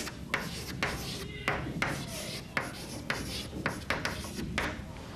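Chalk writing on a blackboard: about a dozen short scratching strokes and taps, irregularly spaced, over a faint low hum.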